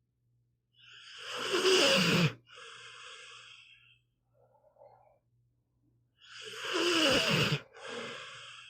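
Pit bull snoring in its sleep: two snoring breaths about five seconds apart, each a loud rasping snore that drops in pitch, followed by a softer breath.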